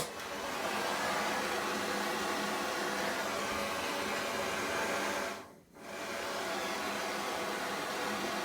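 Handheld gas torch flame hissing steadily while it heats a fluxed copper pipe fitting for soldering. The sound briefly cuts out about five and a half seconds in, then resumes.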